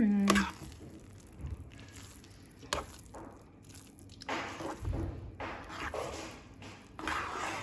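A spatula stirring and folding thick, sticky moong dal halwa in a nonstick pan, giving soft squelching and scraping. There are a few light clicks in the first half, and the stirring strokes come thicker in the second half.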